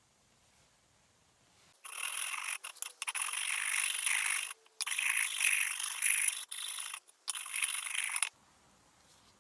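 Scrubbing or scraping on a part in several runs of strokes, with short breaks between them, starting about two seconds in and stopping about a second before the end.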